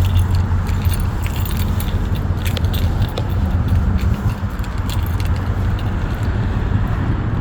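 Steady low rumble with frequent light, sharp metallic jingling clicks scattered over it.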